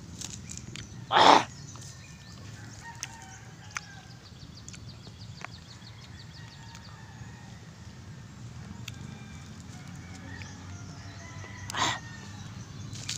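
Mouth sounds of a man eating calamansi halves with chili: a loud, short suck or slurp about a second in and a weaker one near the end, with small clicks between. Faint bird calls carry on in the background.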